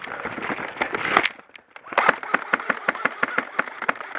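Rustling movement with a few sharp cracks, then after a short lull a rapid, even string of airsoft gun shots at about six a second.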